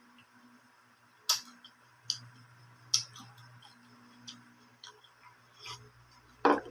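Close-up eating sounds of someone biting and chewing raw fruit: sharp, irregular crunches and mouth clicks about a second apart, with a louder, fuller crunch near the end.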